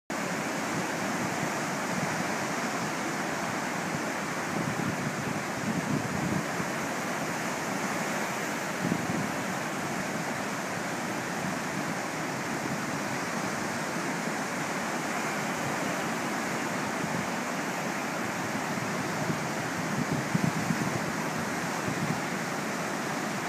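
Ocean surf breaking and washing up a beach: a steady rushing wash of waves.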